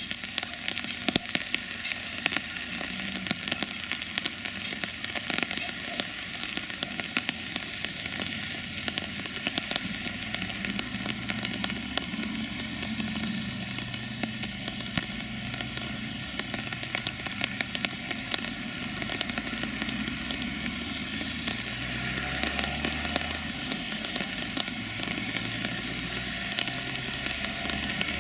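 Rain falling, dense with sharp close drop clicks and a steady hiss. From about a third of the way in, road vehicle engines run low underneath, with a lorry's engine growing louder near the end.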